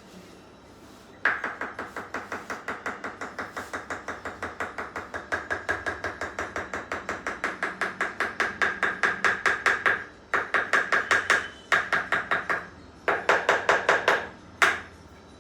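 A treatment device clicking rapidly and evenly, about six sharp ringing clicks a second, applied during what the chiropractor calls toxin therapy. It runs in one long stretch of about nine seconds, then in three shorter bursts, and ends with a single click.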